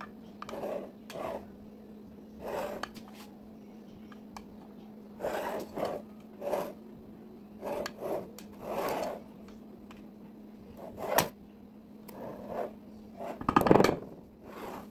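A utensil scraping against a glass baking dish in short, irregular strokes while spreading a soft chocolate layer over whipped cream, over a steady low hum. A louder knock comes near the end.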